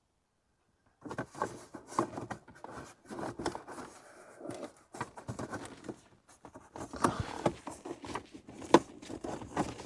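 Handling noises from work on a car's dashboard: irregular clicks, taps and knocks of hard parts with rustling between them, starting about a second in.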